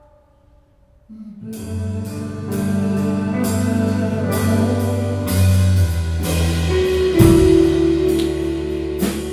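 A live rock band plays an instrumental passage. After about a second of near quiet, the bass, guitar and drum kit come in together, with regular drum and cymbal hits.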